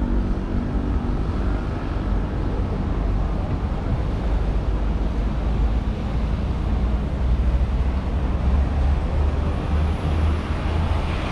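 Road traffic: a steady low rumble of engines and tyres from vehicles passing on a city street, including a truck and a double-decker bus. One engine's steady hum fades out in the first couple of seconds.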